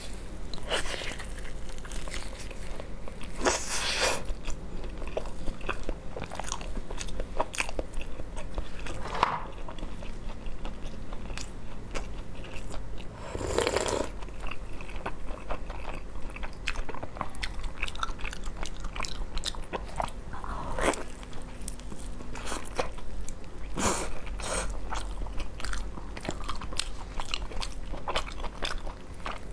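Close-miked mouth sounds of a person biting and chewing braised pork trotter: a steady run of sticky, wet clicks and smacks, with a handful of louder bites spread through.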